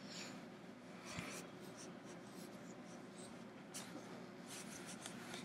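Faint rustling and scraping of bedding and clothing as a person shifts and moves her arms close to a laptop microphone, with a soft knock about a second in.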